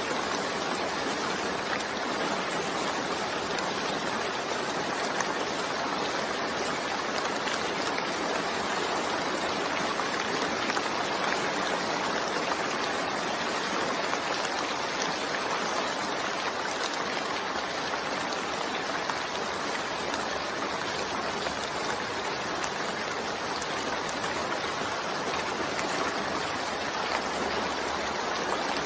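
Steady, dense rainfall: an even, unbroken hiss of falling water.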